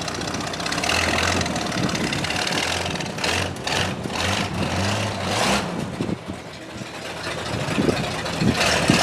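Old Chevrolet rat rod's engine running, its pitch rising and falling a few times as it is revved, with a few knocks near the end. The clutch has just been fitted with all-new parts.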